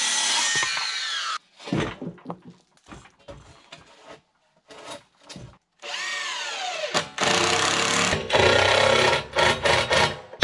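Cordless drill driving screws into wooden trailer boards. The motor runs and winds down in pitch, stopping about a second in, then fires in a string of short trigger bursts, then runs longer and louder from about seven seconds in.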